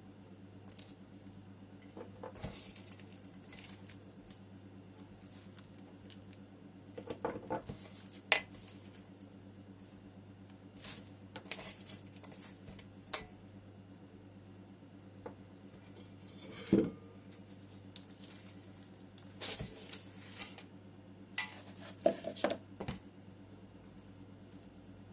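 Irregular clinks and knocks of ceramic pots and tools being handled during potting, some with a short ring, the sharpest about eight seconds in and again near the middle.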